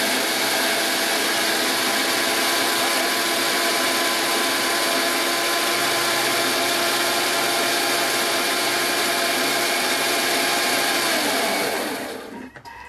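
Thermomix food processor blending blackberries at speed 10, a loud steady motor whine as the blades crush the berries and their seeds; it winds down and stops near the end.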